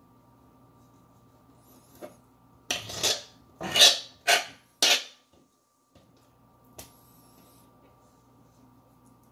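A fillet knife scraping across a plastic cutting board in a run of four or five quick strokes a few seconds in, over a faint steady hum.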